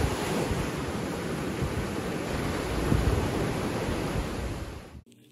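Small waves breaking and washing up a sandy beach, a steady surf noise with a low rumble of wind on the microphone, swelling briefly about three seconds in. It cuts off suddenly near the end.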